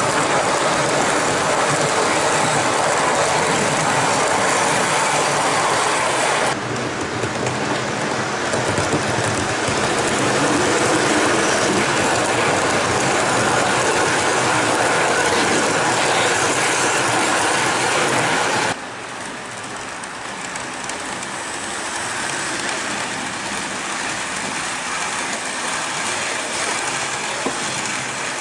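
HO-scale model train, a Jouef BB 67349 locomotive with its coaches, running on the track close by: a steady whirring and rattling of the motor, gears and wheels. The sound drops sharply in level twice, about a third and two-thirds of the way through.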